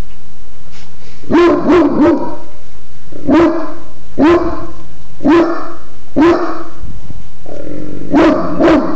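A Great Dane barking: deep barks, three in quick succession about a second and a half in, then single barks about once a second, ending with a close pair.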